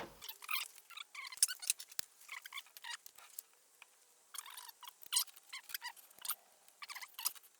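Faint, irregular small scrapes and clicks of hand tools and suspension parts being handled during car work, with no steady tone or engine.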